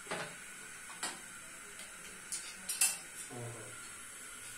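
Kitchen utensils clinking and knocking: a few separate short knocks and clicks, the loudest about three seconds in, as a plastic cutting board and a knife are taken down from wall hooks and handled.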